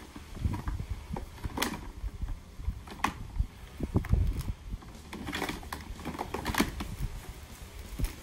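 Irregular clicks, knocks and rustling from pressure washer parts and accessories being handled; the motor is not running.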